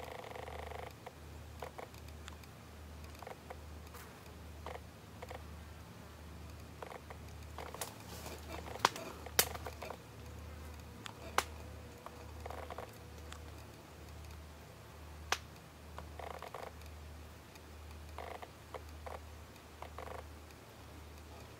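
Faint buzzing of flying insects coming and going, over a low hum that pulses a little faster than once a second. A few sharp clicks stand out near the middle.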